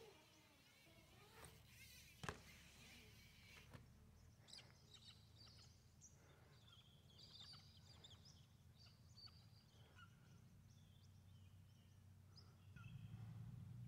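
Faint outdoor ambience: a sharp knock about two seconds in, then birds chirping in short, scattered calls over a low steady rumble that gets louder near the end.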